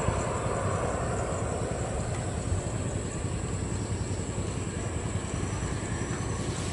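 Steady rumble of distant jet aircraft engines, slowly fading.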